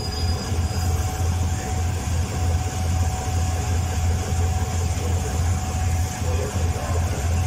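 GEK-class GE diesel-electric locomotive No. 4043 of the State Railway of Thailand idling while standing: a deep, evenly pulsing engine throb with a faint steady whine above it.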